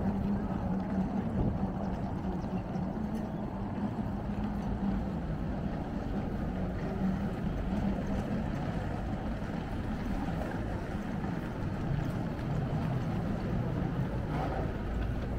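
Steady outdoor background rumble with a faint low hum running through it.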